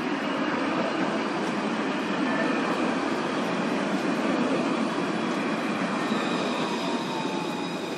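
Paris tram running on its rails: a steady rumble with faint high-pitched wheel squeal, and a thin tone that slides down in pitch near the end.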